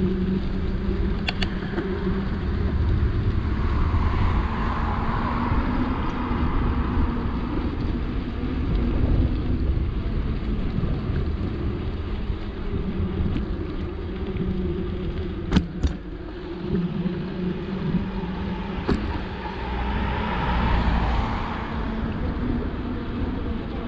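Steady rumble of wind and tyres on a bicycle ride along a road, with a car going past twice, about four seconds in and again near the end. A few sharp clicks cut through, the loudest about two thirds of the way.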